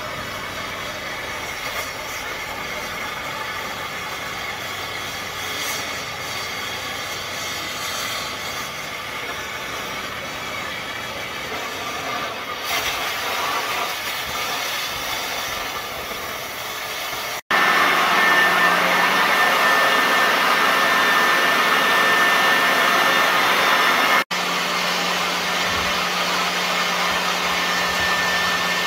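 Oxy-fuel cutting torch on a pattern-tracing track burner hissing steadily as it burns through Hardox plate; about 13 seconds in the hiss turns brighter. After two abrupt edits, a louder steady rushing noise with a thin high whine takes over.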